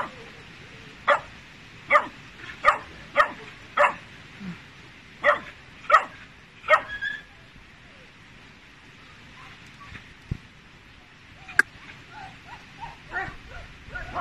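Tibetan mastiff puppy barking in short, high yaps, about nine in the first seven seconds, then one more sharp bark a few seconds later and some softer, fainter calls near the end.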